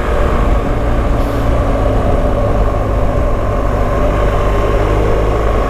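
BMW GS motorcycle running steadily at road speed, its engine note mixed with a heavy, even rumble of wind and road noise on the camera microphone.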